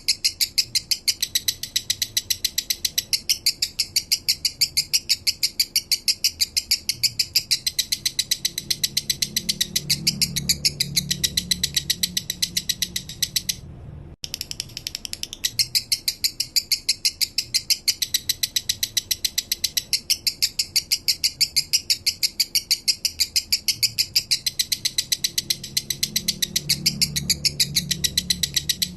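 Male lovebird singing a long, unbroken 'minor' song: a steady, rapid string of short high chirps, about five or six a second, breaking off for an instant about halfway through and then starting again.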